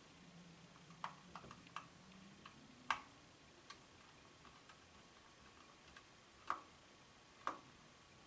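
Faint, scattered clicks and taps of a small Torx screwdriver and fingers on the plastic housing of an Arlo Essential Outdoor Camera while T5 screws are worked out of its battery compartment. The sharpest taps come about three seconds in and twice near the end.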